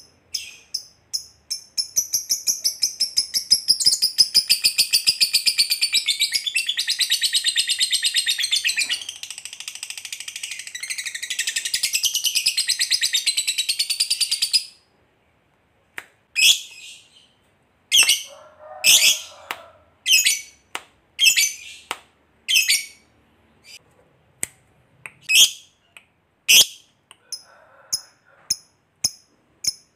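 Lovebird chattering: a long, very rapid, high-pitched trill of repeated notes (ngekek panjang) lasting about twelve seconds that cuts off suddenly. After a brief pause come separate sharp chirps about one a second.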